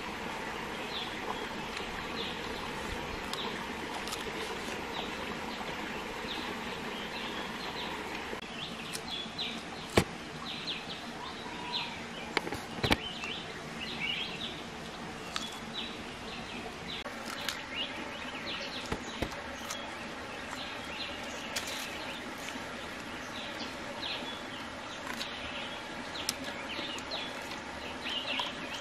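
Steady outdoor background hiss with many small bird chirps throughout, and a few sharp clicks, the loudest about ten seconds in.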